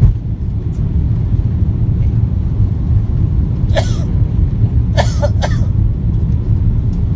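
Steady low rumble of a jet airliner's cabin noise heard from a window seat, with short coughs: one about four seconds in and two close together about a second later.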